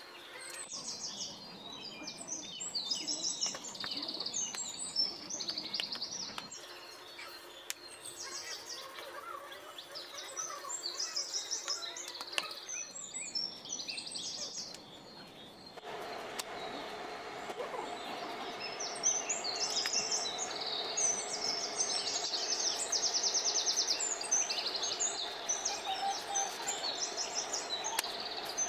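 Birds chirping and trilling again and again in the background, over a low room noise that changes abruptly a few times. From about halfway, a steady hum sits under the chirps.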